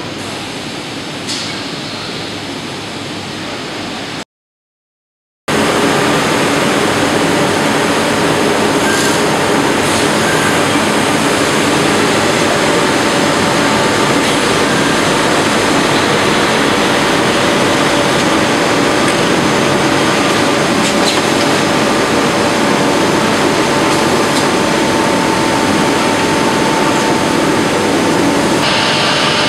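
Steady running noise of automated production-line machinery, conveyors and machine drives, with a faint hum of a few steady tones. The sound cuts out completely for about a second around four seconds in, then comes back louder and stays steady.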